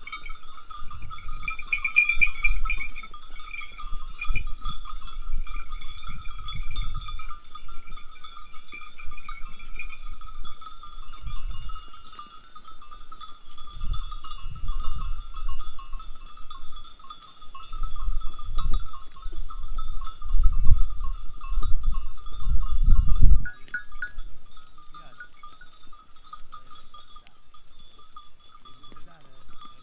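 Metal bells on a herd of sheep and goats clinking and ringing without pause as the animals move. Intermittent low rumbling comes and goes under them and is loudest about twenty to twenty-three seconds in.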